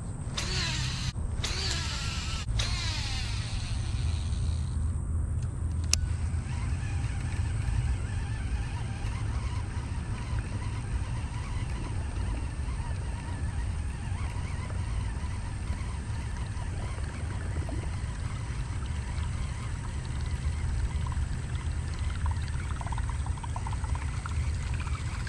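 Wind buffeting the microphone as a steady low rumble, with faint water sounds under it and a single sharp click about six seconds in.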